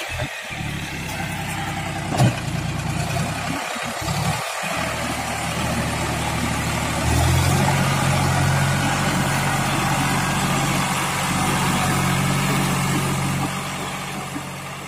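John Deere 5104 tractor's three-cylinder diesel engine running steadily while working a rotary tiller through wet paddy mud. The engine note steps up and gets louder about seven seconds in, and there is a single sharp knock about two seconds in.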